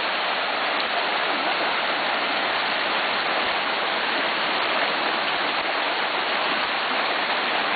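A small mountain stream rushing over rocks: a steady, even rush of water.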